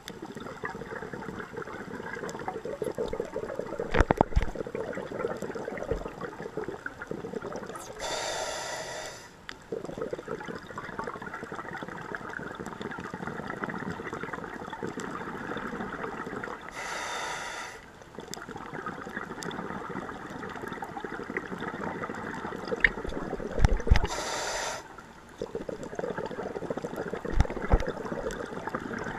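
A scuba diver breathing through a regulator underwater: about every eight seconds a hiss of inhalation lasting roughly a second, over steady underwater crackling, with a few low thumps.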